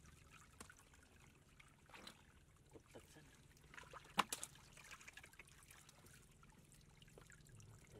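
Faint splashing and trickling of shallow muddy water stirred by hands and a plastic basket, with a few small clicks and one sharp knock about four seconds in.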